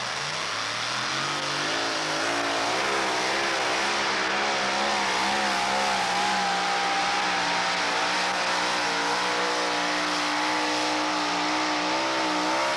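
Two-wheel-drive pulling truck's engine at full throttle, dragging a weight-transfer sled. The revs climb over the first couple of seconds, then hold high with a wavering pitch, and the sound stops abruptly at the end of the pull.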